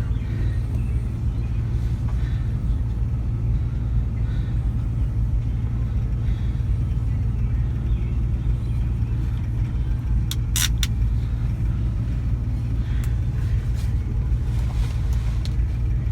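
Steady low rumble of a car, with two sharp clicks about ten seconds in.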